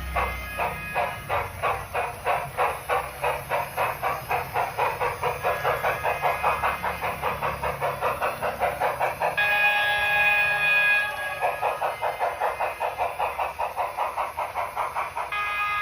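Steam-locomotive sound effects from a model Union Pacific Big Boy: fast, even chuffing, about four or five beats a second. A chime steam whistle sounds about two-thirds of the way in for a couple of seconds, and again near the end.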